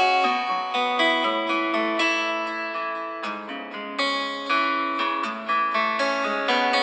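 A stock Redmi Note 7 MIUI ringtone playing: a melody of quick plucked, guitar-like notes, each struck sharply and fading, with no deep bass.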